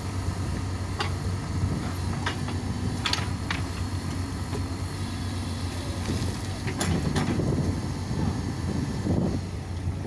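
Backhoe loader's diesel engine running steadily as the backhoe arm digs, with scattered sharp metallic clanks and knocks from the bucket and arm linkage.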